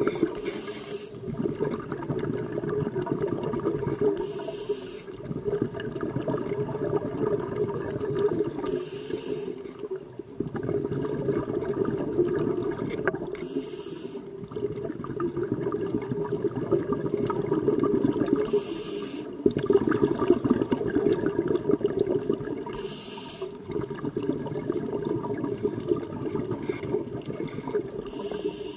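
Scuba diver breathing through a regulator underwater: a short hiss of inhalation about every four to five seconds, between long stretches of rumbling, gurgling exhaust bubbles.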